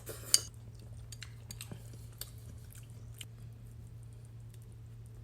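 A person chewing food, close to the microphone: scattered small wet mouth clicks and smacks, with one sharp click about a third of a second in. A steady low hum runs underneath.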